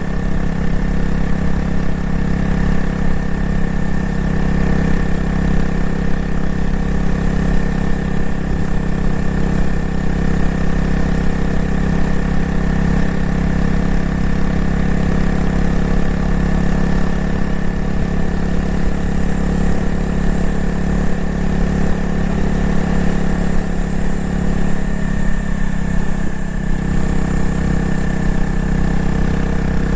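Honda CRF250L's single-cylinder engine running at a steady engine speed, its exhaust note even throughout, with a slight change in pitch about 25 seconds in.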